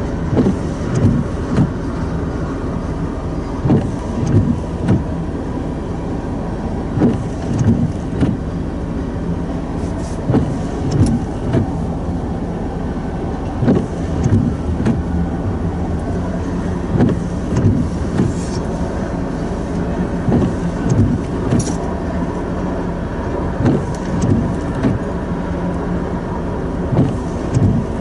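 Freight train rolling past, its car wheels clacking over rail joints in close pairs every second or two over a steady rumble and hum.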